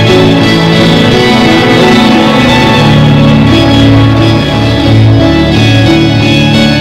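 Background music: an instrumental track with guitar, playing steadily.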